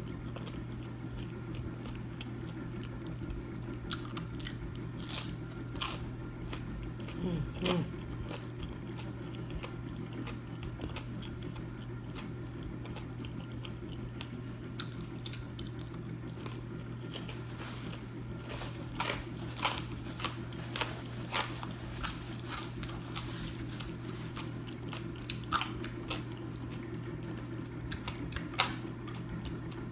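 A person biting and chewing crunchy fried food close to the microphone: scattered crisp crunches, more of them in the second half, over a steady low hum.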